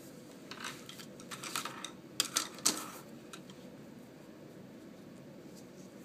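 Stiff paper index cards being handled and flipped over: a run of papery clicks and rustles, with three sharper snaps close together about two and a half seconds in.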